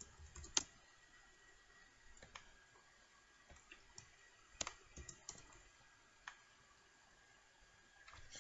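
Faint, scattered computer keyboard keystrokes, a few clicks spread unevenly about a second apart, as a short chat message is typed and sent.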